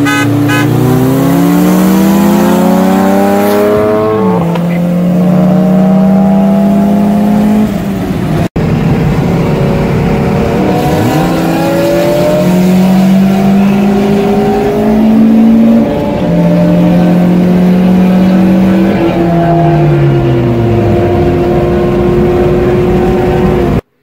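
Car engine at full throttle during a highway roll race, heard from inside the cabin: its pitch climbs, drops back at each upshift and climbs again through several gears. Near the end the pitch falls away as the car slows.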